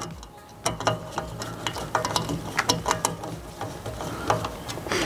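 Screwdriver tightening the Phillips-head screws of a yagi antenna's boom-to-element clamps, giving a run of short, irregular clicks.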